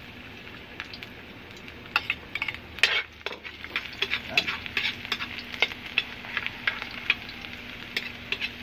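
Minced garlic sizzling in hot oil in a steel wok, with a metal spatula scraping and clicking against the wok as it is stirred; the strokes begin about two seconds in.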